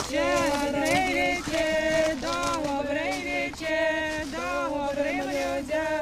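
A voice singing a slow melody with long held notes.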